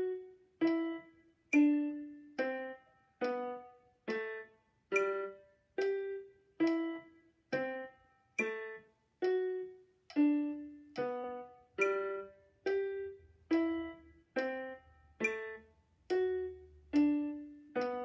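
Casio Casiotone electronic keyboard playing a slow single-line melody at a steady 70 beats per minute. Each note comes a little under a second after the last and rings and fades before the next.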